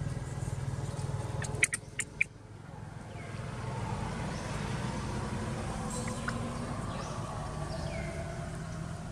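A car engine running steadily nearby, with a few sharp clicks about a second and a half to two seconds in and a couple of faint short high squeaks.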